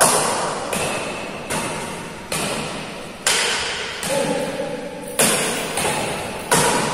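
Badminton rackets striking a shuttlecock in a fast back-and-forth rally: about nine sharp hits, one every half to one second, each ringing out in a large echoing hall.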